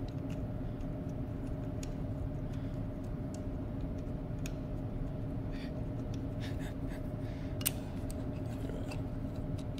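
A steady machine hum holding two or three fixed pitches, with scattered light clicks and taps of metal pump parts being handled, one sharper click about three-quarters of the way through.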